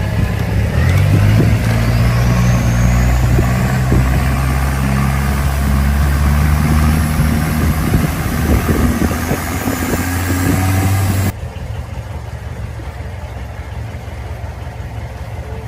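Motorboat engine running loud and revving, its pitch climbing slightly. About eleven seconds in it drops suddenly to a quieter, steady engine hum.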